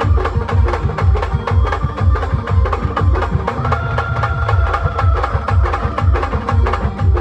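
Indian brass band playing a fast, dense drum-and-percussion beat under a melody line that holds one long note about halfway through.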